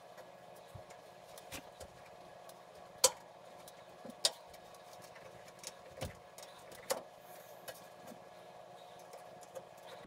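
Scattered sharp clicks and knocks from hands working at a furnace's sheet-metal vent pipe, the two loudest about three and four seconds in, over a steady faint hum.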